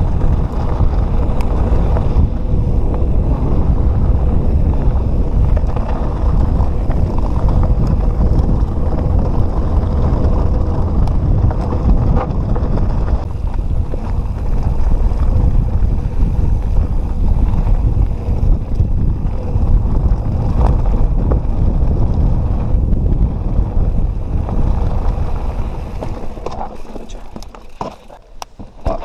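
Wind buffeting a helmet or bike-mounted action camera's microphone while a mountain bike rolls along a trail, a steady low rumble. It eases near the end, where a few sharp clicks and knocks come through.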